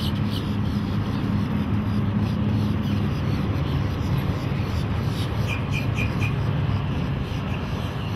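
Twin MerCruiser 7.4L MPI big-block V8 inboards of a 2000 Formula 330 SS cruiser running at speed, a steady low engine drone with water noise as the boat passes.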